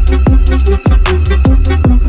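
Electronic background music with a heavy bass and a steady beat of deep kick drums that drop in pitch.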